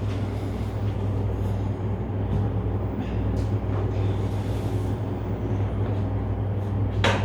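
Steady low electrical hum with a faint hiss over it, and a few soft clicks. A brief louder noise comes near the end.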